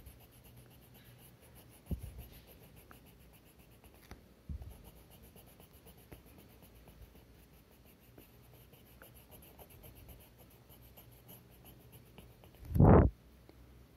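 Colour pencil shading on paper, a soft scratching, with light knocks about two and four and a half seconds in and one loud thump near the end.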